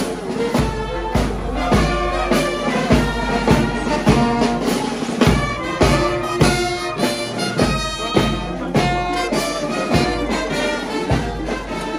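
Brass band playing: trumpets and trombones over a steady beat on bass and snare drums.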